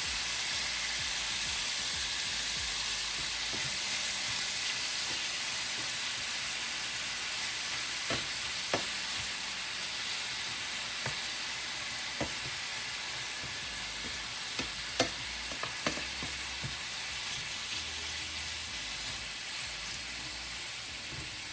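Cajun-seasoned shrimp sizzling in hot avocado oil in a skillet, a steady frying hiss that slowly fades. A few sharp clicks in the middle, from utensil or shrimp against the pan.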